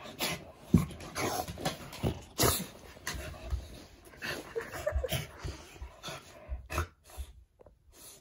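A wet dog rolling and rubbing itself on a towel and dog bed after a shower: irregular fabric rustling and knocks, mixed with the dog's own breathing and short noises.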